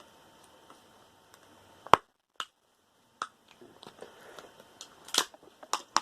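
Hand work on a scrap computer cable, pulling its metal shielding apart: a few separate sharp clicks and snips, the loudest about two seconds in, then a scatter of lighter clicks that bunch up near the end.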